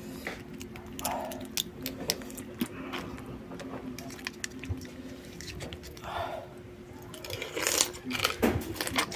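Close-up eating sounds of raw crab and snail: chewing with many short wet mouth clicks and smacks, louder crunching near the end, over a steady low hum.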